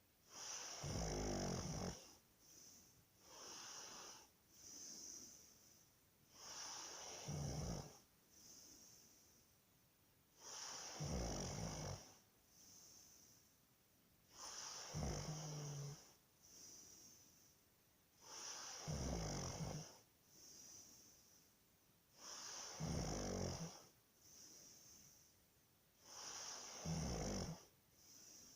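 A person snoring in a steady rhythm: a loud snore with a low rattling buzz about every four seconds, with softer breathing sounds in between.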